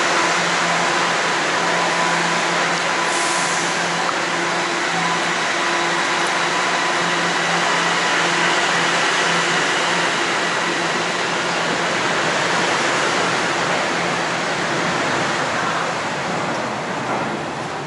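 Toronto subway train running, heard from inside the car: a steady rush of wheel and motor noise with faint steady whines, easing off a little near the end.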